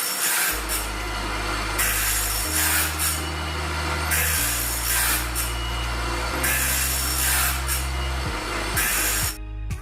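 Irregular rasping strokes on wood, one every second or two, over background music with a slow bass line that changes note every couple of seconds. The rasping stops shortly before the end and only the music carries on.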